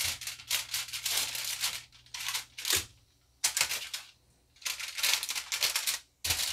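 Aluminium foil crinkling in several irregular bursts with short gaps, as gloved hands move halved onions and ginger around on it.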